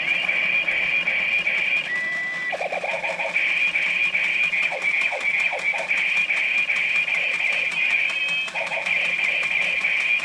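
Toy chainsaw's small speaker playing tinny electronic sound effects and jingle, a buzzy, harsh sound with short chirps and a brief steady beep about two seconds in.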